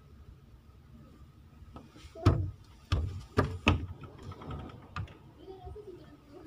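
Several sharp knocks and thumps, about five in under three seconds, as a wooden door is handled and pushed open. A faint steady tone runs underneath.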